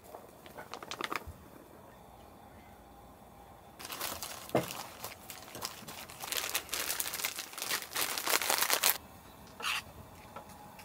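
Crinkling and rustling of something being handled: a few light clicks near the start, then a dense stretch of crinkling from about four to nine seconds in.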